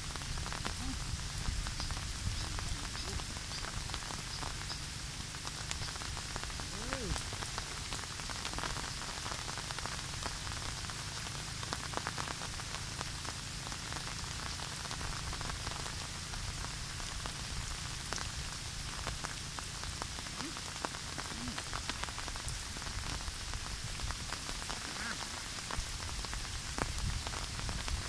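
Steady rain falling, with scattered close drops ticking sharply.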